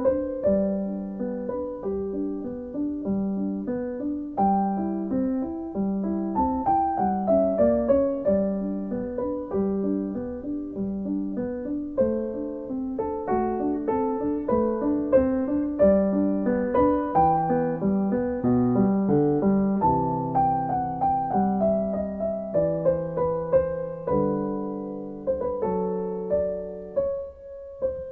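Background music: a solo piano piece, with low notes repeating steadily under a moving melody.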